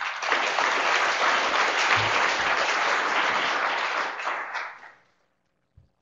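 Audience applauding for about five seconds, dying away near the end.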